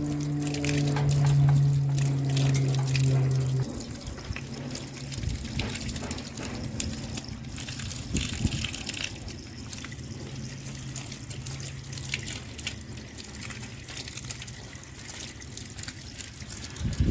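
Water running and trickling. A steady low hum sits under it for the first few seconds and stops abruptly.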